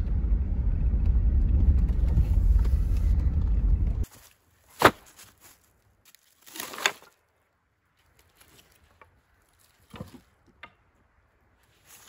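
Low, steady rumble of a vehicle driving, heard from inside the cabin, cutting off suddenly after about four seconds. After it come a sharp snap, a short rustle and a few faint clicks from handling a plastic-wrapped bundle of firewood.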